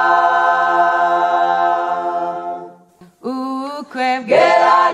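Unaccompanied singing of a Kinyarwanda gospel song: a long held note ends a line, then after a short break a little under three seconds in, the voices start the next line.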